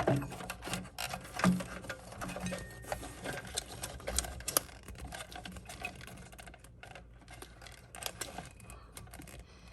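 Quick irregular clicks, taps and rattles of hands handling plastic parts and wire connectors while a refrigerator's inverter board is being fitted, thinning out toward the end.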